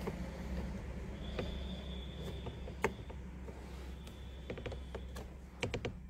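Scattered sharp clicks and small taps of a steering-wheel spinner knob's clamp and screw as it is worked and tightened by hand onto the wheel rim, with quick clusters of clicks past the middle and near the end. A steady low hum runs underneath.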